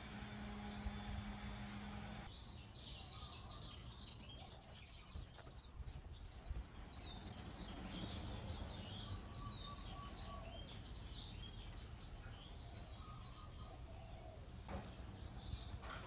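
Birds chirping and twittering faintly over a low background rumble. A steady droning hum fills the first two seconds and stops at a cut, and a couple of sharp clicks come near the end.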